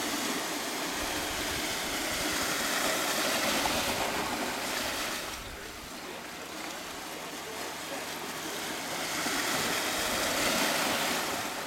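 Water washing in small waves, a steady rushing that surges up and eases off twice.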